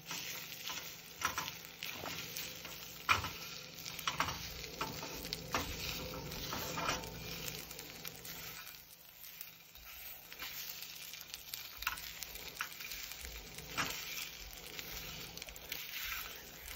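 Scrambled eggs sizzling in a small frying pan on an electric stove, with a plastic spatula scraping and tapping the pan again and again as they are stirred. There is a brief lull about halfway through.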